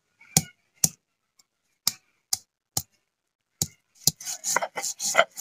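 Stone roller of a shil-nora grinding stone knocking down on ginger and garlic cloves on the stone slab to crush them, about eight sharp knocks at uneven intervals. About four seconds in it turns to rolling back and forth over the slab, a continuous rough grinding scrape.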